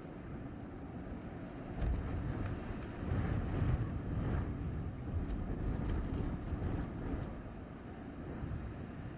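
Blizzard wind blowing in gusts, deep and rumbling, rising sharply about two seconds in, strongest through the middle and easing near the end.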